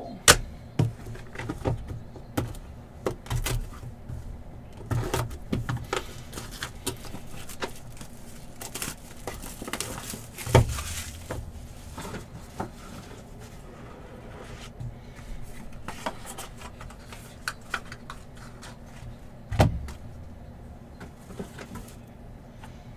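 Trading cards, plastic card holders and a cardboard hobby box being handled on a table: scattered clicks and taps, with louder knocks near the start, about ten seconds in and near the end, and a stretch of rustling around nine to ten seconds in.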